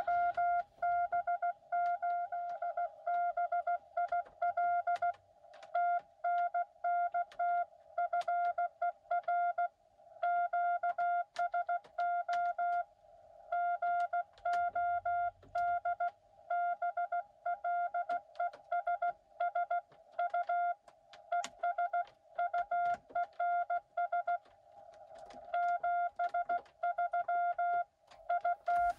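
Morse code from a Xiegu X6100 transceiver: a single steady tone keyed on and off in quick dots and dashes, pausing briefly about ten and thirteen seconds in. Sharp clicks are scattered among the tones.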